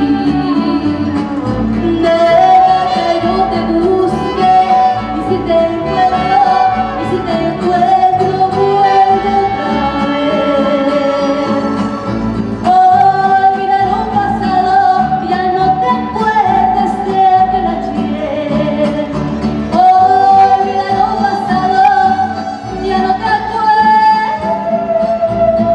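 A woman singing a slow ballad live into a microphone through a PA, over instrumental backing music, holding several long notes.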